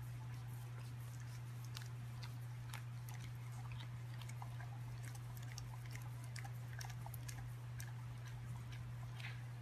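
Chewing: irregular crunchy clicks and smacks, close to the microphone, over a steady low hum.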